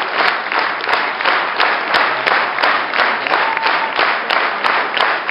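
Audience applauding, with a steady beat of about three sharp claps a second running through the clapping.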